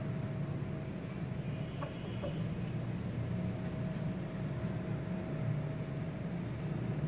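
Steady low machine hum with a faint, steady higher tone running over it.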